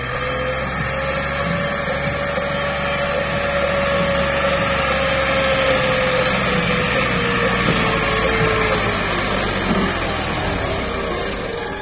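Massey Ferguson 260 Turbo tractor's diesel engine working hard under heavy load, hauling a loaded mud trolley up a ramp. A steady whine in the engine note rises slightly, then sags in pitch about two-thirds of the way through.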